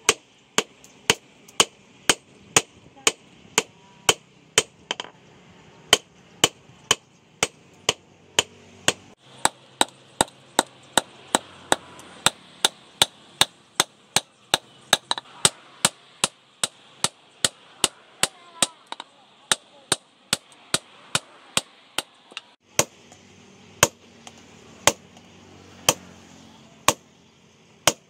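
Hand hammer striking a red-hot steel knife blank on a post anvil in steady, evenly spaced blows, about two a second.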